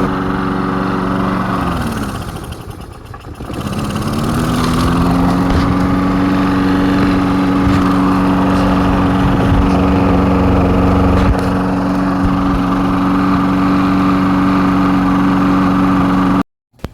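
Small lawnmower engine running. About two seconds in its speed drops sharply and it nearly dies, then it picks back up within a couple of seconds and runs steadily until the sound cuts off suddenly near the end.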